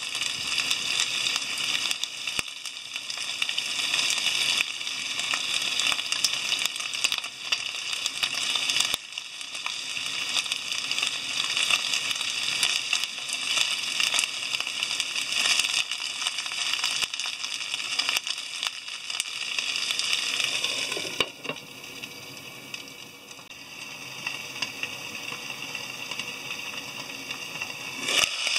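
Chicken thigh pieces, eggplant and green peppers sizzling and crackling in oil in a frying pan. About 21 seconds in the sizzle turns softer, and near the end there is a single clink as a glass lid goes onto the pan.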